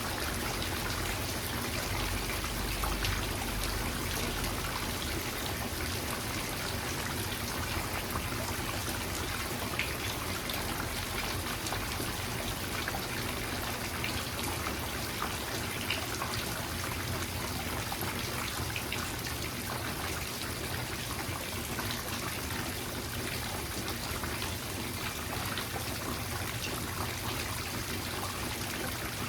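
Steady rainfall: a continuous hiss of rain with many small drips and trickles of water.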